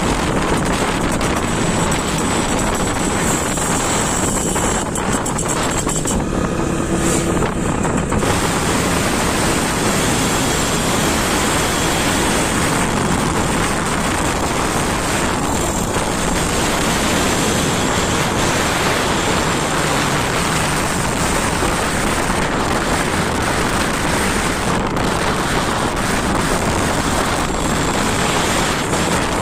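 Wind rushing over the microphone, mixed with steady engine and road noise, while riding along at speed. It stays even throughout, with no clear single engine note standing out.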